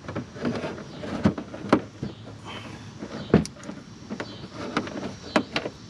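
Irregular sharp clicks and knocks, about half a dozen, the loudest a little under two seconds in and again after about three seconds, from hands working on a car's bumper and its fittings.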